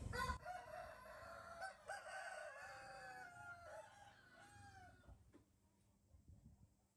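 Faint rooster crowing: several drawn-out, wavering calls over the first five seconds, fading out.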